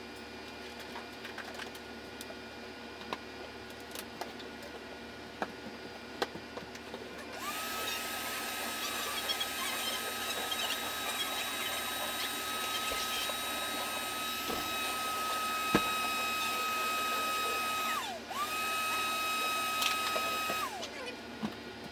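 Wet/dry shop vacuum switched on about a third of the way in, running with a steady whine over a rush of air. It is switched off and straight back on about two-thirds through, then shut off near the end. Light clicks and knocks come before it starts.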